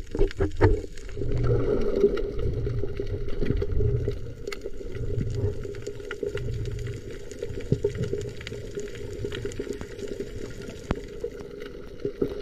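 Muffled underwater water noise heard below the surface over a coral reef, with slow low swells about once a second and scattered faint clicks.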